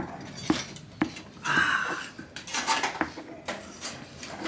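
Stone pestle knocking and grinding in a volcanic-stone molcajete: a run of sharp clicks with gritty scraping between them as garlic, chile and salt are ground for salsa.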